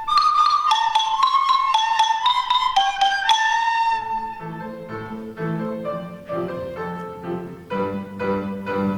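Instrumental music: a bright, high melody over quick struck mallet-percussion notes, which about four seconds in gives way to a lower, softer passage of repeated notes.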